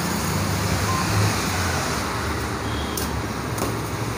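Steady hum of road traffic, with a couple of faint clicks about three seconds in.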